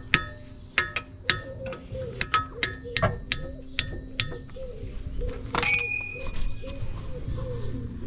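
A spanner working a bolt on a car's gearbox casing: a string of sharp metallic clinks, each ringing briefly, about two or three a second, then one louder ringing clang about five and a half seconds in. Background music runs underneath.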